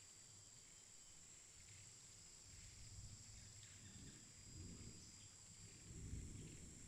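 Faint forest ambience: a steady high-pitched drone of insects such as crickets, with low rumbles building in the second half.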